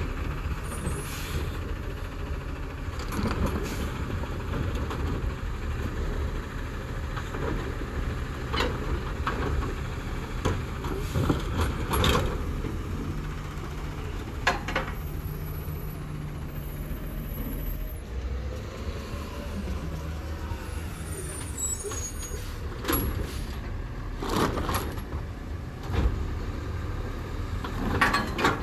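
Autocar ACX garbage truck's engine running steadily while its New Way Sidewinder automated side-loader arm works, lifting and dumping a cart near the end. Sharp bangs and hisses break in now and then, including air-brake hisses.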